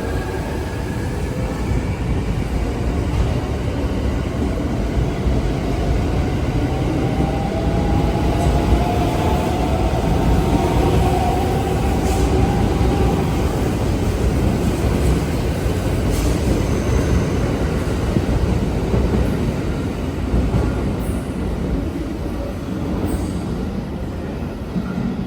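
Electric train moving at a station platform: a steady low rumble of wheels on rails, with a motor whine that glides up in pitch partway through and a few sharp clicks.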